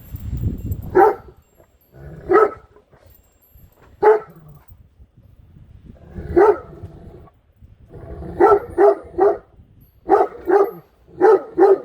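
Great Dane barking in alarm at an unfamiliar object in her path: single deep barks a second or two apart, then quicker runs of two and three barks in the last few seconds. Wind rumbles on the microphone.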